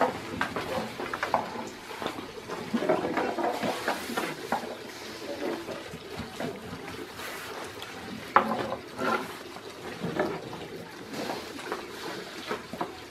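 Yufka dough being rolled out with long, thin wooden rolling pins (oklava) on low wooden boards: a run of rolling and rubbing, with wooden knocks, the sharpest a couple of clacks about two thirds of the way through.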